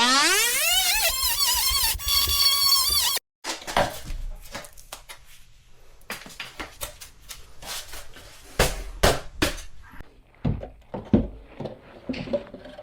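Oscillating multi-tool cutting a vinyl plank: a high, buzzing whine whose pitch climbs and wavers as the blade bites, stopping abruptly about three seconds in. Then a run of short knocks and clicks as the plank is handled.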